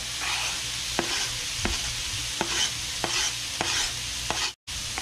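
Chopped onion and garlic sizzling as they hit hot oil in a cast-iron skillet of frying dove breasts, with repeated sharp taps and scrapes of a utensil pushing the onion off a plastic cutting board into the pan.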